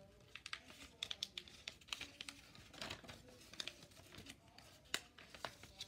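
A sheet of paper rustling and crinkling as it is folded and creased by hand, a faint run of short, irregular crackles.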